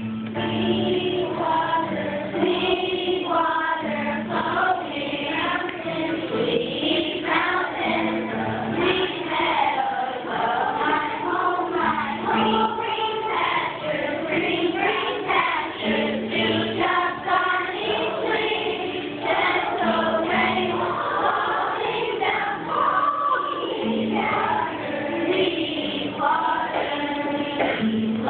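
Children's choir singing a song together, with low accompanying notes held under the voices.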